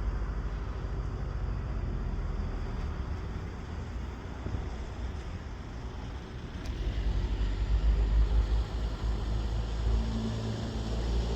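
Steady low outdoor rumble. Near the end, the propeller drone of an approaching Cessna 172 Skyhawk's piston engine grows louder.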